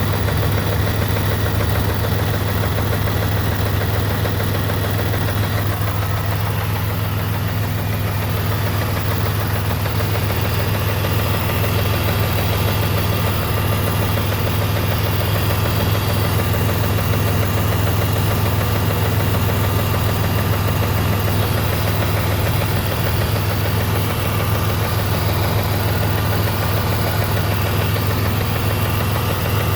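Jeep Grand Cherokee 4.0 L inline-six engine idling steadily with a rapid, even tick running through it.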